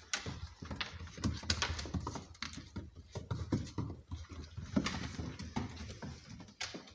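Puppies play-fighting on a wooden floor: paws pattering and scrabbling on the boards in quick irregular clicks, with short puppy growls.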